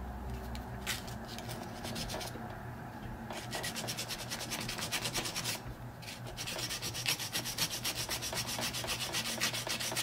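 Sandpaper rubbed quickly back and forth over a brass key blank held in an impressioning handle, smoothing the filed cuts. The rubbing comes in two runs of rapid strokes, starting a few seconds in with a short pause around the middle, after a quieter stretch of handling clicks.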